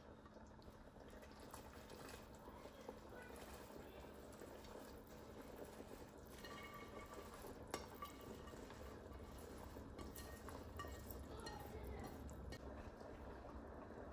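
Faint bubbling of a pot of simmering tomato and lentil soup, with soft rustling and light clicks as handfuls of chopped spinach are tipped in, and one sharp tap about halfway through.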